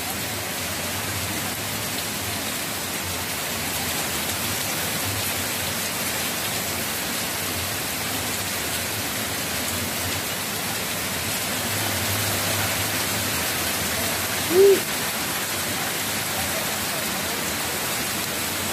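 Heavy rain pouring down steadily, a dense even hiss of water. About fourteen and a half seconds in, a brief tone rises and falls, the loudest moment.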